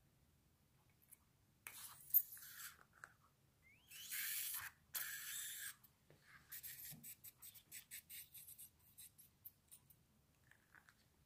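Rubber stress ball squeezed by hand: two stretches of hissing squish, the second the loudest, then a run of short crackles, about three or four a second, thinning out.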